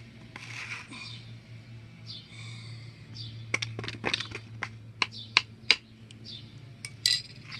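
A metal spoon stirring and scooping thick slime in a foam bowl, making a run of sharp clicks and sticky pops. Most come between about three and a half and six seconds in, with one more burst near the end.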